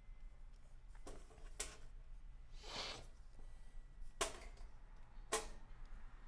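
Hardware being handled and fitted: a few sharp clicks and knocks of sheet-metal parts and fasteners, spaced out over several seconds, with a brief scraping slide in the middle.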